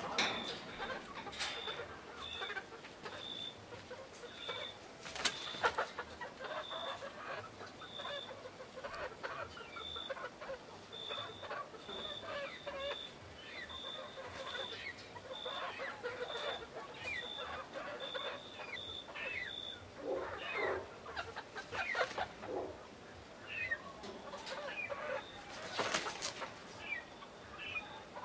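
A flock of young pearl-grey Italian chickens clucking and chirping softly as they settle on a perch to roost for the night. A few loud wing-flapping bursts come about five seconds in and again near the end as birds flap up or shift. A short high peep repeats about twice a second through the first two-thirds.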